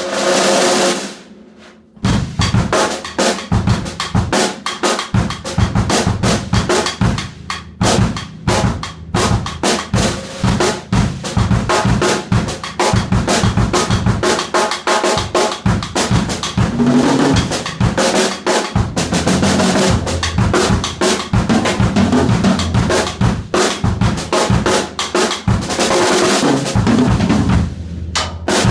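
Yamaha Stage Custom drum kit with its drums tuned wide open, heard in the room. A single hit rings out and fades over the first two seconds. Then, from about two seconds in, the kit is played continuously in grooves and fills across kick, snare and toms.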